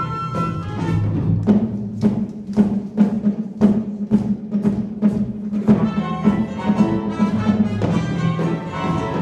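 Orchestral show music: a steady beat, about two strikes a second, over a held low note, with a fuller pitched texture joining about six seconds in.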